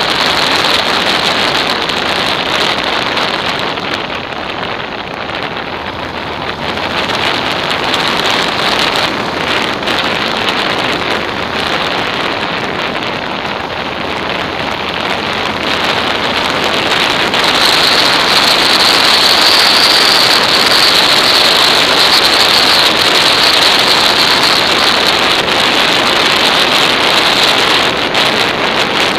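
Wind rushing over the microphone of an action camera on a motorcycle at road speed, a steady roar of noise with no clear engine note. It eases a few seconds in and grows louder from a little past halfway.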